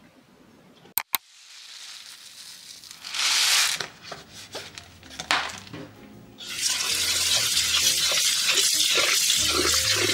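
Kitchen tap running into a pot of rice in a stainless steel sink, with water splashing as a hand rinses the grains. The steady running water starts about two-thirds of the way in, after two sharp clicks and a brief splash earlier.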